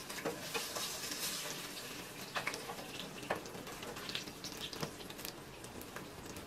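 Battered jackfruit fritters sizzling as they deep-fry in hot coconut oil in a saucepan, with a steady hiss and several sharp clicks as metal tongs and a slotted spoon turn and lift the pieces.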